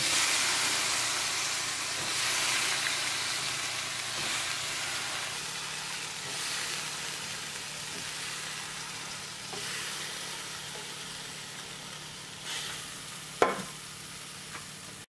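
Diced raw potatoes, still wet from their soaking water, tipped into hot oil in a steel wok: a loud sizzle at first that slowly dies down. A single sharp click near the end.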